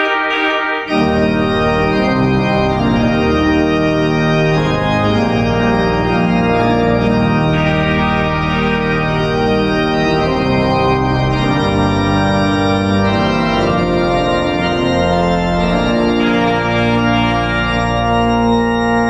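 Large multi-manual organ playing a sustained chordal passage, the chords changing every second or so. Deep bass notes join about a second in.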